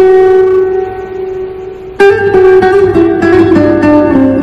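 Background music of plucked guitar: notes ring out and fade, then a new chord is struck about two seconds in and further notes follow.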